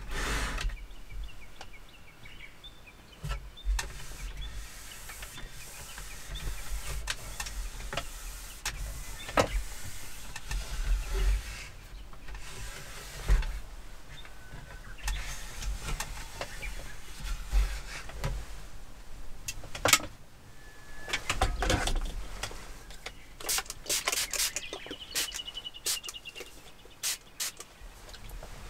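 Heavy rain and wind on the shell of a small truck camper: a steady low rumble with scattered irregular taps and knocks.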